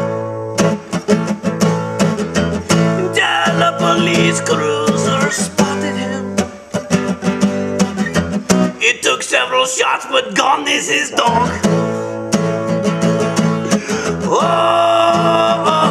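Music: an acoustic guitar strummed in a steady rhythm as song accompaniment, with a wavering melodic line over it at times.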